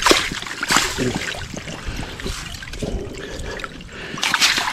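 A fish splashing in the slushy water of an ice-fishing hole as it is gripped by hand and pulled out, with water trickling off. There are sharp splashes at the start and just under a second in, and a louder burst of splashing near the end.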